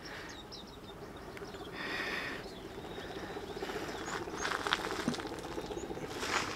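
Small birds chirping in short, high calls, over footsteps on the trail, with a brief rustle about two seconds in.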